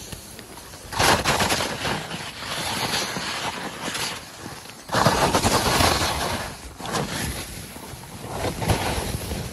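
Skis scraping and carving over firm, chopped snow through a series of turns, each turn a loud hissing rush that swells in suddenly, the strongest about a second in and about five seconds in.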